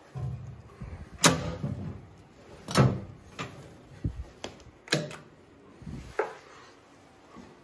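Sharp metal clunks and clicks from the levers and fittings of a Boxford lathe being worked by hand, with the machine at rest: four loud knocks spaced a second or two apart, with lighter clicks between.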